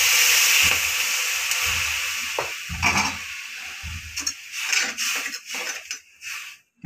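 Water poured from a steel tumbler onto sugar in a metal kadai, hissing loudly and fading over the first two seconds or so; then a spoon scraping and clinking around the pan as the sugar and water are stirred into syrup.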